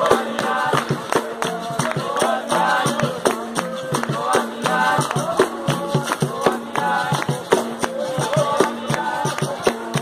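Capoeira roda music: berimbau playing under a group singing the chorus, with steady rhythmic hand clapping.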